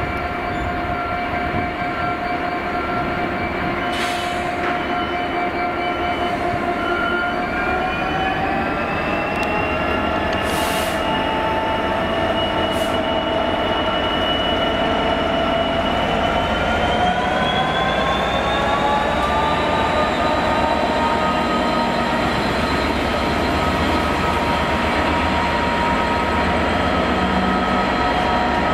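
Freightliner Class 66 diesel locomotive, with its two-stroke V12 engine, hauling a train of container flat wagons slowly past. Its engine note rises in pitch twice, at about a third and again at about two-thirds of the way through, as the locomotive powers up. Brief hisses are heard a few times over the steady running.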